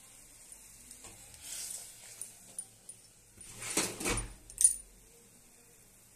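A flat metal spatula scraping and clinking against a metal kadai while stirring frying masala. There are light taps at first, a louder scrape a little past halfway, and a sharp clink just after it.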